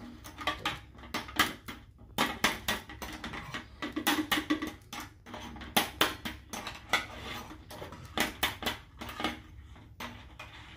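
Metal spoon tapping on the shells of hard-boiled eggs to crack them all over, a rapid, irregular run of light clicks, a few a second.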